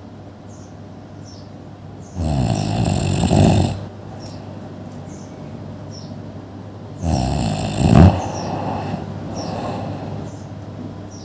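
A person snoring: two loud snores, one about two seconds in and another about seven seconds in, each lasting a second or so, with quieter breathing between them.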